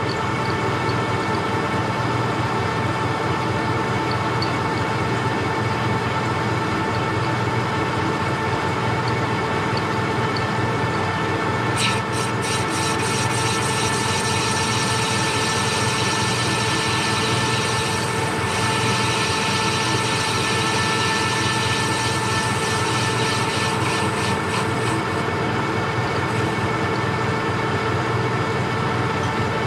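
Metal lathe running with a steady motor whine while turning down a urethane power-feeder wheel. About twelve seconds in the cutting tool bites into the urethane, adding a hissing scrape with fine rapid ticks, which eases off a few seconds before the end.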